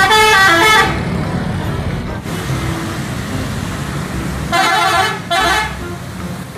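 Indonesian coach buses' multi-tone "telolet" air horns playing short stepped-pitch tunes twice, each lasting about a second, over the steady rumble of the bus engines and road traffic.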